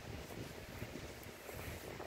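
Faint, low, irregular rumbling of handling noise on the microphone as fingers turn a metal volume knob and the camera phone is moved.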